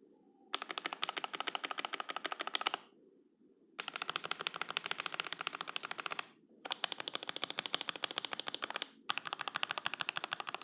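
Fast typing on a CM64 mechanical keyboard with Gateron Yellow linear switches, lubed with Krytox 205g0, and thick PBT keycaps. The keystrokes come quickly and evenly in runs of two to three seconds, with short pauses between.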